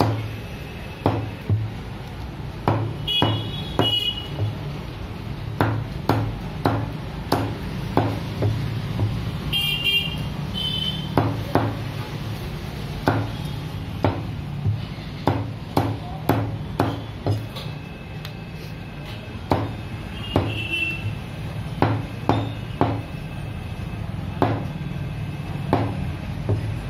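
A butcher's knife chopping raw chicken pieces on a wooden log chopping block: sharp strokes, irregular, about one or two a second, over a steady low hum.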